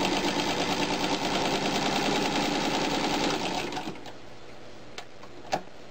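Motor-driven 1937 Singer Model 127 sewing machine stitching through quilt fabric with a fast, even clatter that stops about four seconds in. A few light clicks follow, then one sharp click near the end.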